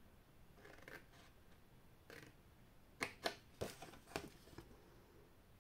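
Scissors cutting through a sheet of paper card: faint rustles of the card being handled, then about five short, sharp snips in the second half.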